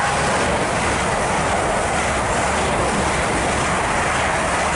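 South Western Railway electric multiple unit passing the platform at speed: a loud, steady rush of wheels on rail and air.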